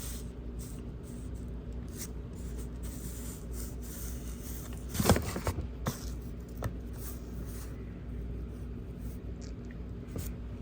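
Light handling noises: soft scraping and scattered clicks from hands moving wiring and parts, with a short cluster of louder clicks about five seconds in, over a steady low hum.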